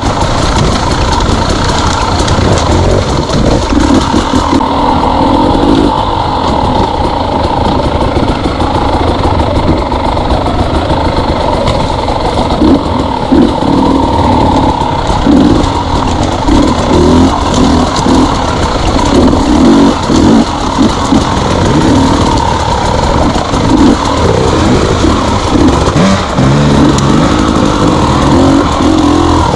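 Two-stroke KTM enduro dirt bike engine running under the rider, its pitch rising and falling with the throttle as it picks along a rough trail.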